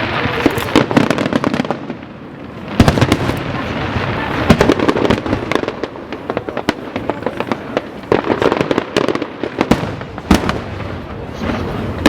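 Fireworks display: a dense run of bursting shells, sharp bangs with crackling in between, loudest in clusters about three and four and a half seconds in.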